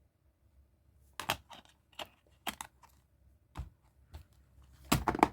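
Plastic DVD cases and discs being handled: scattered clicks and snaps, with a louder cluster of clicks near the end.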